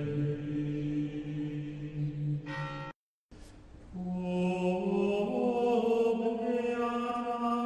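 Slow background music of long held, chant-like notes. It breaks off into a brief silence about three seconds in, then resumes with new held notes that swell up.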